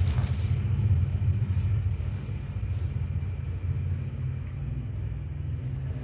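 A steady low rumble, with newspaper rustling for a moment at the start as the paper pieces are picked up.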